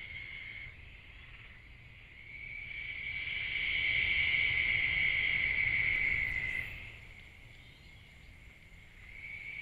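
Chorus of night insects trilling steadily at one high pitch, swelling louder for a few seconds in the middle and then fading away, and picking up again near the end.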